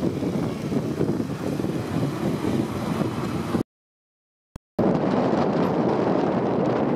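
Wind buffeting the microphone on a moving moped, with the rumble of the ride and traffic underneath. About halfway through the sound cuts out completely for about a second, broken only by a short click, then comes back at the same level.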